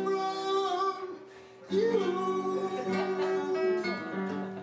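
A song: a man singing held notes over acoustic guitar, with a brief drop about a second in before the singing picks up again.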